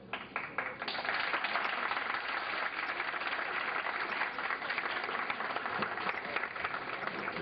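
Audience applauding: the clapping breaks out suddenly, fills out within the first second, then keeps up steadily.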